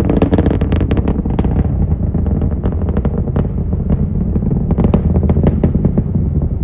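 Rocket engine heard from far off during ascent: a low rumble with dense, irregular crackling.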